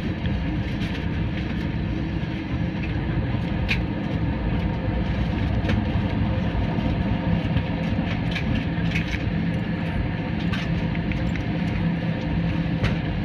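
Airliner cabin during takeoff: the steady low rumble of the jet engines and rushing air, with a few faint clicks scattered through it.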